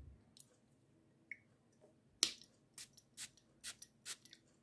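Pump atomizer of an Afnan Supremacy Noir eau de parfum bottle spraying onto the skin: about five short hissing sprays in quick succession, starting about two seconds in, the first the loudest.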